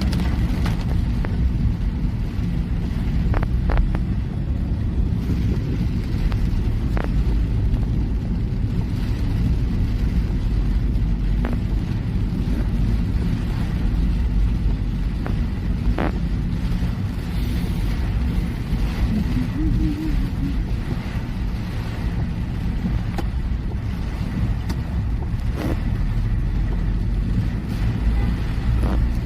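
Steady low rumble of a car driving, engine and road noise heard from inside the cabin, with a few sharp clicks scattered through it.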